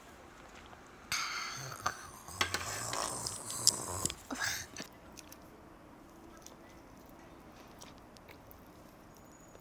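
Close-up chewing and biting of food: a loud crackly, clicky stretch from about a second in to about five seconds, then quieter with only a few faint mouth clicks.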